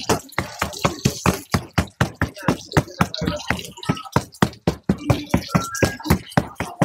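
Rapid, even knocking on a food-prep work surface at a pancake stall, about five strikes a second.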